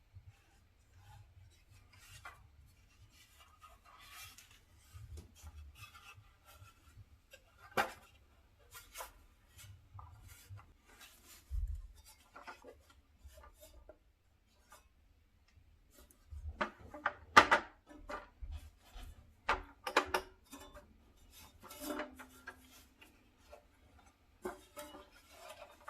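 Hands handling the parts and packaging of an LED video lighting kit: soft rubbing and scraping with scattered light clicks and knocks, and a busier run of sharper knocks a little past the middle.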